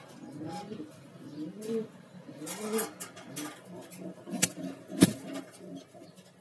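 Pigeons cooing over and over in low, rising-and-falling calls, with a rustle and two sharp knocks near the end, the second the loudest sound.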